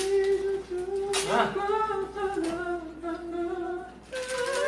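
A young man humming one long, level note for nearly four seconds, then stepping up to a higher note near the end.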